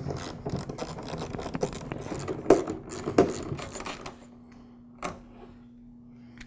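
Metallic clicking and clinking of a wrench working the nuts that hold the harness onto a backpack blower, busy for about the first four seconds, then a single click about five seconds in.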